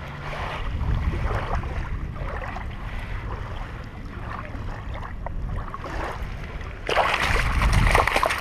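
Wind rumbling on the microphone over small water noises at the shoreline. About seven seconds in, a hooked pike starts thrashing in the shallows, a loud burst of splashing.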